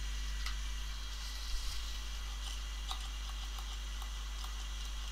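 Faint clicks and a soft thump from a tissue being pressed onto the pump top of a solvent dispenser bottle, over a steady electrical hum and hiss.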